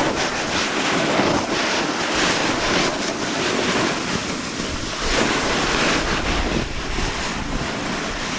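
Snowboard sliding and carving down through snow, a steady rushing scrape, with wind buffeting the microphone and rumbling harder from about five seconds in.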